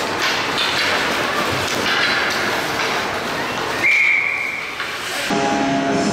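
Hockey referee's whistle: one steady high blast of about a second, about four seconds in, over the general din of an ice rink. About a second later, arena music starts over the PA, as is usual at a stoppage before a faceoff.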